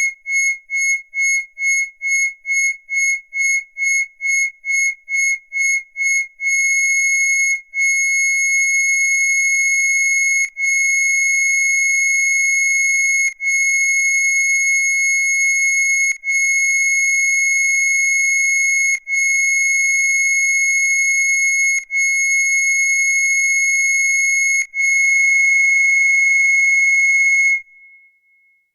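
Arturia Buchla Easel V software synthesizer playing a single high-pitched, whistle-like tone. It first pulses rapidly, about two and a half times a second, then sounds as long even notes of about three seconds each. It stops near the end.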